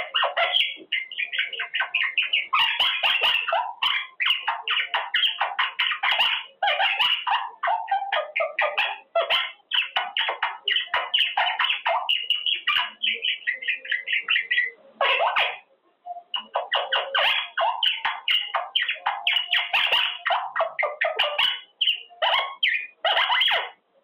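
Quaker parrot (monk parakeet) chattering rapidly and almost without pause: a stream of quick, squawky chirps and babble, with a brief break about fifteen seconds in.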